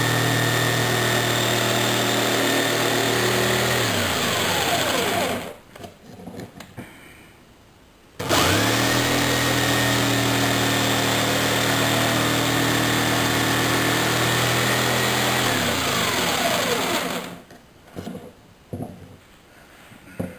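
Jigsaw cutting into a wood block in two runs of several seconds with a pause between, the motor pitch falling each time as it is switched off and winds down. A few light knocks near the end.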